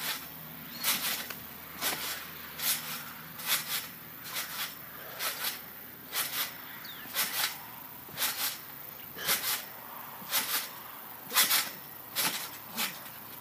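Backyard trampoline creaking with each bounce, its springs and mat sounding once a bounce in a steady rhythm of about one a second, each bounce a quick double creak.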